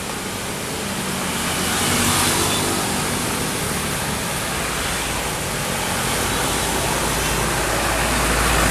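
Komatsu long-arm excavator's diesel engine working under hydraulic load as it lifts and swings the boom, over a steady rushing hiss. The engine grows louder and deeper near the end.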